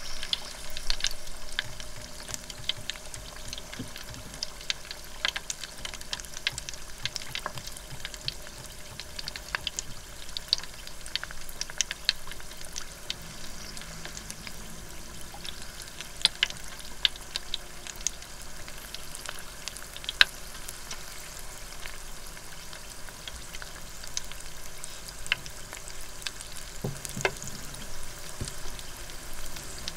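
A frozen loempia (spring roll) deep-frying in hot oil in an electric deep fryer: steady sizzling and bubbling, dotted with frequent sharp crackles and pops.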